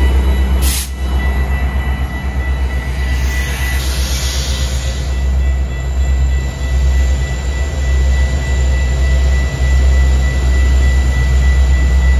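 Metra commuter train running with a deep, steady rumble and a thin, steady high-pitched whine. There is a sharp knock about a second in, and a hiss swells and fades around the middle.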